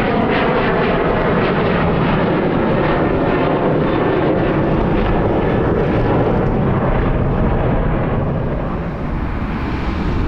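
Boeing 737's twin CFM56 turbofan engines roaring at climb power as the jet climbs out after takeoff; the loud steady roar thins near the end as its higher tones fade with distance.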